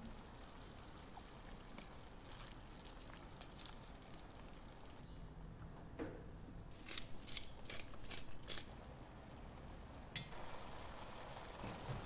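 Onion and ketchup sauce sizzling in a frying pan. A little past halfway comes a quick run of about six light clicks from chopsticks stirring against the pan. Near the end the sauce bubbles at a simmer.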